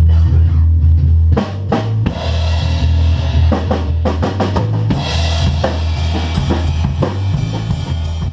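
Bass guitar and drum kit playing together in a band sound check: a steady bass line throughout, with kick drum, snare and cymbals joining about a second and a half in.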